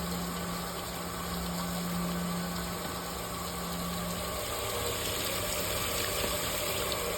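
Steady hiss of water still spraying from a failed expansion tank, over the low, even hum of boiler-room machinery. The hum weakens about four seconds in.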